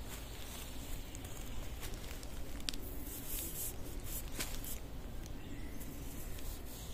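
Scattered soft rustles and scrapes over a steady low rumble, the bunching of them a little before the middle.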